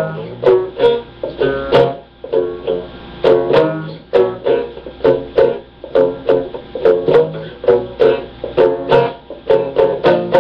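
A plucked stringed instrument played solo: sharp plucked chords about twice a second, each left ringing until the next.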